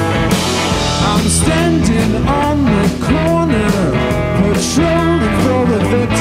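Rock band playing a blues-rock song with electric guitars, bass and a drum beat; from about a second in a lead line of notes bending up and down rides over the band.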